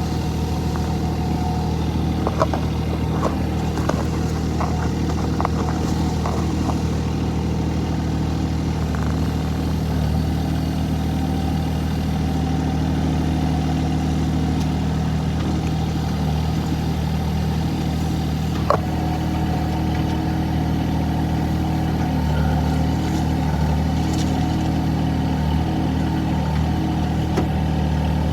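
Excavator's diesel engine running steadily, with several light knocks a few seconds in and one sharper knock about two-thirds of the way through.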